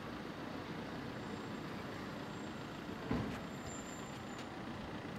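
Steady low rumble of road traffic, with a brief low thump about three seconds in.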